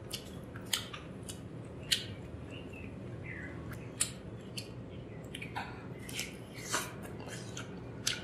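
Close-miked eating: wet mouth clicks and smacks while chewing chicken curry and rice, a scatter of sharp irregular clicks with the loudest about two and four seconds in.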